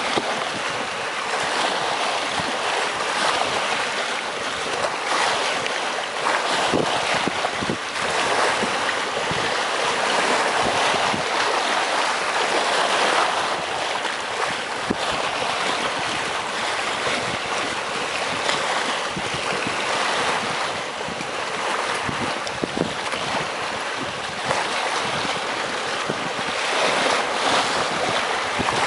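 Sea waves washing and splashing against breakwater rocks, a continuous hiss of surf that swells and eases every few seconds.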